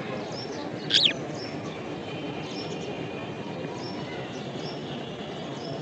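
Budgerigars chirping: short, high chirps repeated throughout, with one loud, sharp call falling in pitch about a second in.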